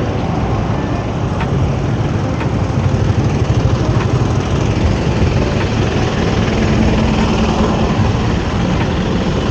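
Motorbike engines running in slow, queued traffic close around the bicycle, a steady low engine noise with no break.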